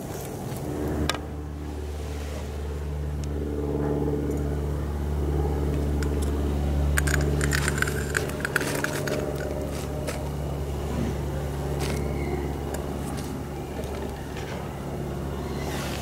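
A steady low hum with several held tones, like a running motor, that sets in about a second in. A short stretch of crackling and scraping comes around the middle.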